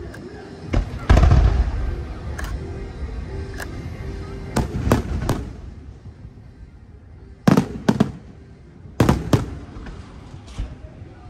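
Aerial fireworks shells bursting overhead: a string of sharp bangs, the biggest about a second in with a rumbling tail, then clusters of two or three bangs around the middle and toward the end.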